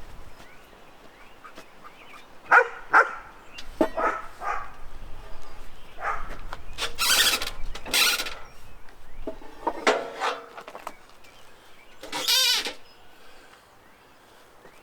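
Animal calls: several short calls, then one longer wavering call about twelve seconds in, with two sharper noisy bursts in the middle.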